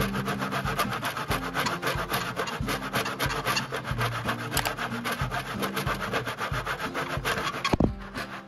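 A hand miter saw cutting through a 1x2 wooden furring strip in a plastic miter box, with rapid back-and-forth rasping strokes. Near the end the strokes break off briefly with a knock.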